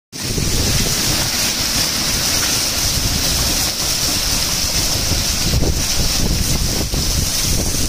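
Heavy rain mixed with hail pelting a paved street, a steady dense hiss, with wind rumbling on the microphone.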